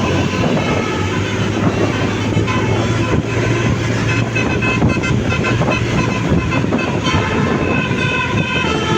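Bus 'telolet' multi-tone musical horn playing a run of sustained, changing notes over the steady hum of the bus engine.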